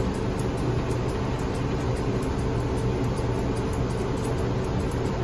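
Steady machine whirr with a constant low hum and a fainter higher tone, unchanging throughout.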